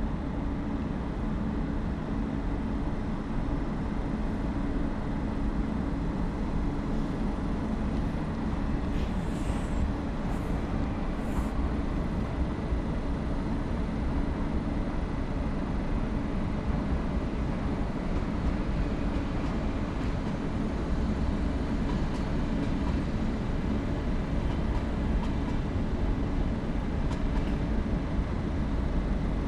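Steady low hum and rumble of electric trains standing at a station platform, with a few brief high hisses about ten seconds in.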